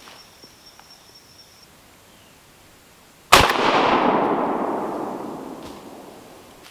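A single shotgun shot about three seconds in, its echo rolling through the woods and dying away over about three seconds.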